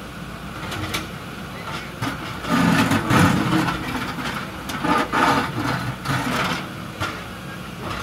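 Diesel engines of JCB backhoe loaders running under load, with repeated knocks and clatter of the bucket against broken concrete; the loudest bangs come about three seconds in and again around five seconds.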